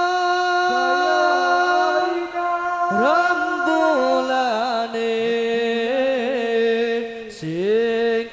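Men singing sholawat devotional song without accompaniment. They hold long, ornamented notes that waver in pitch, sliding up into a new phrase about three seconds in and again near the end.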